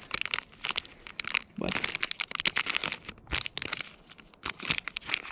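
Plastic lure packaging crinkling as it is handled, a run of quick, irregular crackles.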